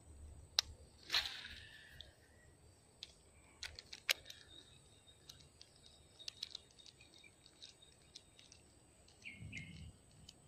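Quiet outdoor ambience with a faint steady high tone, scattered sharp clicks and a louder rustling burst about a second in. A few short bird chirps come near the end.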